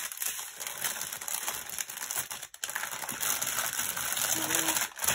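Plastic bags of diamond-painting drills crinkling and rustling as they are handled and packed away, with a short low hum near the end.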